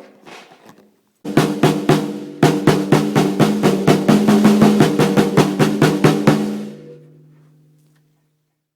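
Drums played in a fast, even run of strokes lasting about five seconds, led by the snare, with lower drum tones ringing under the hits and fading out after the last stroke. A few light taps come before the run.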